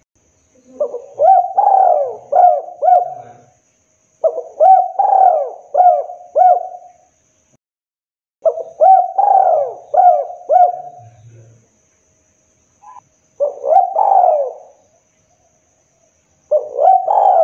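Spotted dove cooing: five phrases of three or four coos each, one phrase about every four seconds, the lure call used to draw wild spotted doves.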